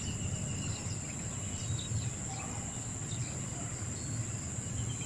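Insects droning in one steady high-pitched tone, with a low rumble underneath.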